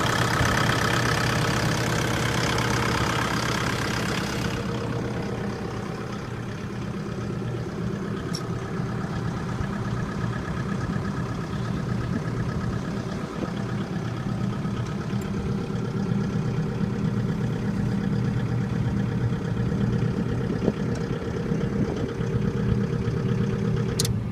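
Multiquip DCA45 diesel generator set running steadily with an even low engine hum. A hiss over it drops away about four seconds in, and there is a sharp click near the end.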